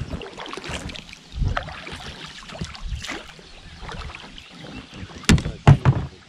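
Small boat being handled on the water: water sloshing and irregular knocks and bumps on the hull, with two sharp, loud knocks about five seconds in.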